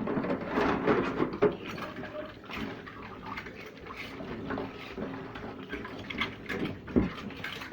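Washing dishes at a kitchen sink: water running from the tap while dishes and utensils clink and clatter against each other irregularly.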